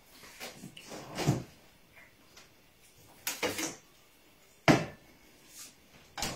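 A few short, separate knocks and clunks, roughly one every second or so, the sharpest about four and a half seconds in.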